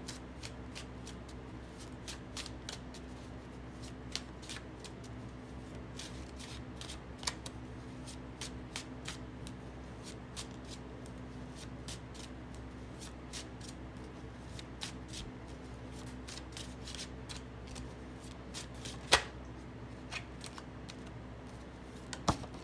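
A deck of tarot cards being shuffled by hand: an irregular run of soft flicks and taps as the cards slide and drop, with two sharper snaps of the cards in the last few seconds.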